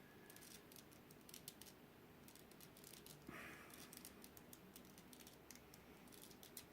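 Faint, quick plastic clicking of a small 3x3 Rubik's cube as its layers are turned rapidly during a speed-solve.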